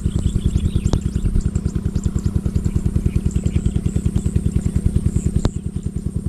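A small engine chugging steadily at about nine beats a second, with a sharp click about a second in and another near the end, after which it is slightly quieter.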